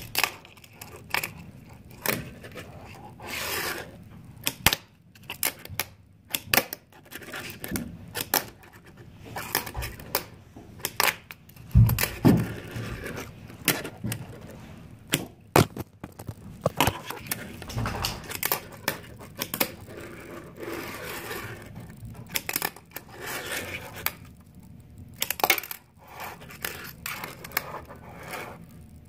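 Tech Deck fingerboard clacking and scraping on a hard counter: many sharp, irregular clicks and knocks, with scraping and rolling noise between them and a few duller thuds.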